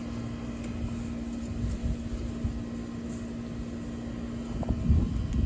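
A steady low mechanical hum runs under low scraping and thumping from digging to loosen soil around a potato plant. The thumps are heaviest near the end.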